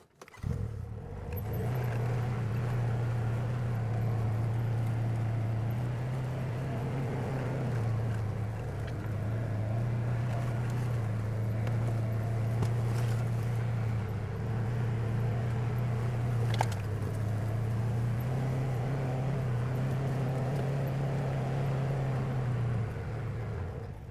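A vehicle engine running steadily at low speed while driving, its low drone wavering slightly. There is one short knock about two-thirds of the way through, and the engine sound cuts off near the end.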